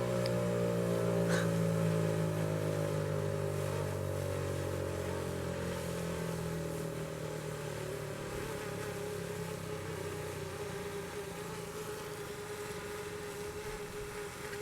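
Federal Signal 508-128 dual-tone outdoor warning siren winding down at the end of its test: a chord of tones slowly falling in pitch and fading, with one tone lingering near the end.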